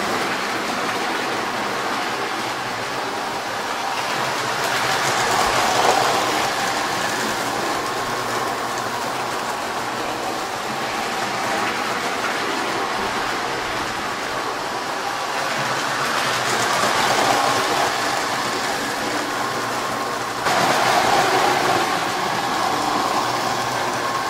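Lionel postwar O-gauge toy trains running on three-rail track: a steady rumble of wheels and motors that swells as cars pass close, about 5 and 17 seconds in, and turns suddenly louder about 20 seconds in.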